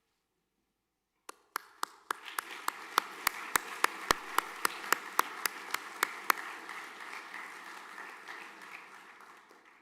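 Audience applause that starts about a second in, with one pair of hands clapping loudly and steadily close by, about three claps a second, for several seconds; the applause then fades away near the end.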